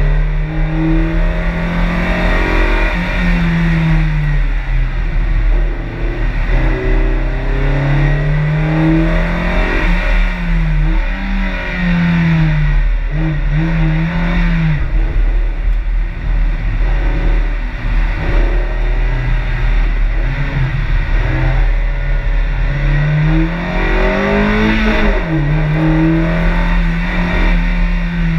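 Mazda MX-5 NB's 1.6-litre four-cylinder engine driven hard on an autoslalom run: the revs climb and fall again and again as the car accelerates, lifts off and changes gear between cones.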